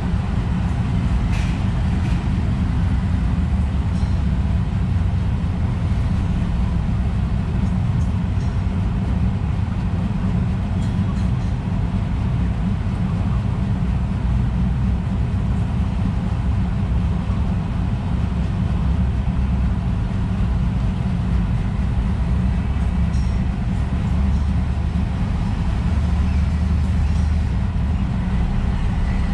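Steady low rumbling noise throughout, with a few faint short high chirps over it.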